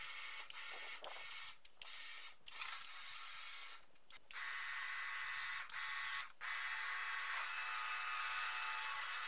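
Pressure washer spraying snow foam through a foam lance onto a car: a steady hiss that stops and restarts briefly several times in the first six seconds or so, then runs on without a break.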